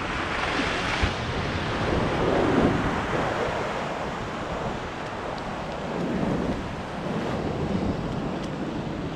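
Sea surf washing against coastal granite rocks, with wind buffeting the microphone and a single light knock about a second in.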